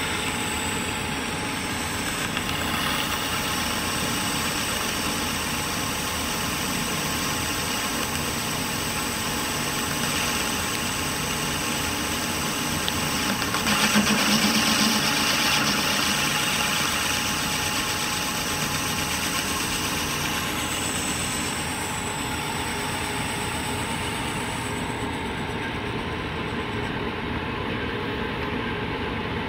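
Clausing 5914 variable-speed metal lathe running, its 2 HP three-phase drive giving a steady mechanical hum. About 13 seconds in it grows louder and harsher for a few seconds as the cutting tool takes a cut across the end of the spinning metal bar.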